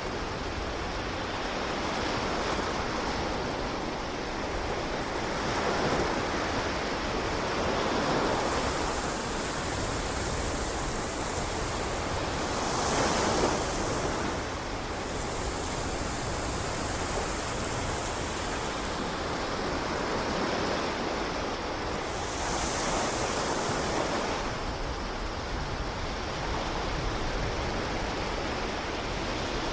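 Ocean surf washing onto a beach: a steady rushing hiss that swells and fades every few seconds, loudest about halfway through.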